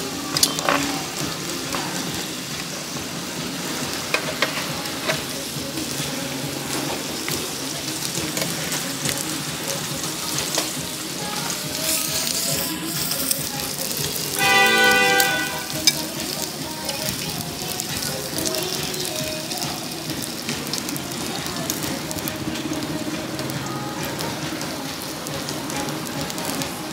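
Food frying in hot oil: a steady crackling sizzle. About halfway through, a brief pitched tone with several overtones rises above it.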